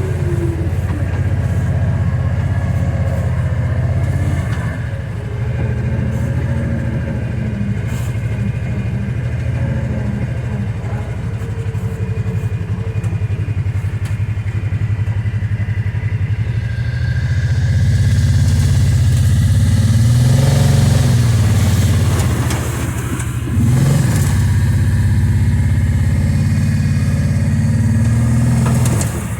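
2022 Kawasaki Teryx 800 side-by-side's engine running steadily while under way. It gets louder past the halfway mark and revs up briefly a couple of times near the end.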